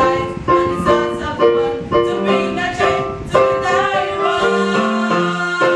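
Gospel song: girls' voices singing over a keyboard accompaniment.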